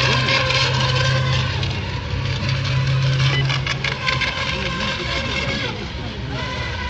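FSR-E electric racing model boats running at speed on the course: a steady motor sound with several held tones. Under it is a low hum that stops about four seconds in.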